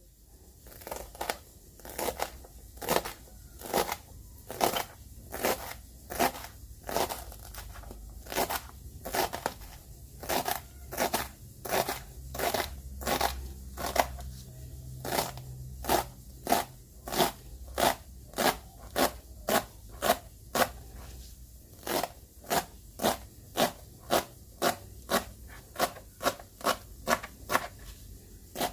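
Knife chopping on a cutting board in a steady rhythm, about two strikes a second, as vegetables are cut into thick pieces.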